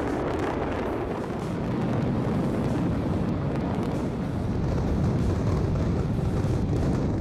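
High-rise tower collapsing in a demolition implosion: a continuous heavy rumble of falling concrete and debris.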